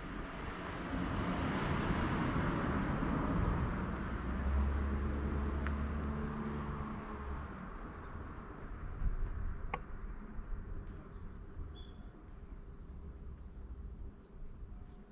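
A road vehicle passes by: its tyre and engine noise swells over the first few seconds, a low engine drone comes through about four to six seconds in, and the noise then slowly fades away.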